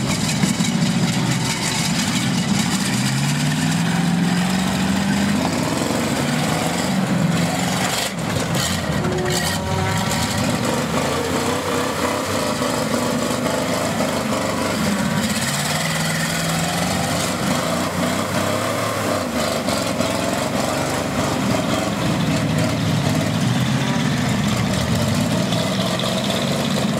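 Several demolition derby cars' engines running and revving at once, pitches rising and falling over a dense, steady din.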